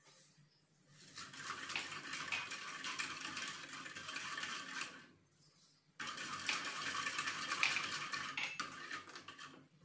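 A steel ladle stirring and scraping against a metal saucepan of liquid, working sugar into it, in two spells: from about a second in to five seconds, then again after a short pause. The scraping is dotted with small clicks of metal on metal.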